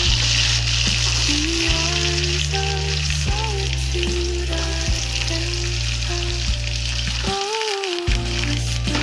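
Food sizzling steadily as it fries in hot oil in a pan, over background music with held bass notes and a simple melody.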